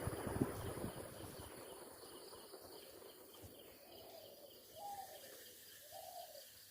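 A 48-inch Crompton Greaves High Speed ceiling fan coasting down after being switched off, its air noise fading away over the first couple of seconds. Afterwards only a faint background remains, with a few soft short calls near the end.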